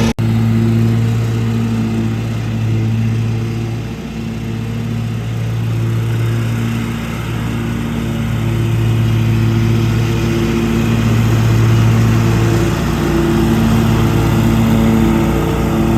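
Lawn mower engine running steadily at working speed, its loudness swelling and easing as the mower moves about.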